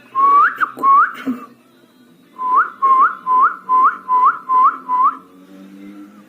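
Pet parrot whistling a series of short notes, each rising in pitch at the end: two near the start, then after a pause seven in quick, even succession.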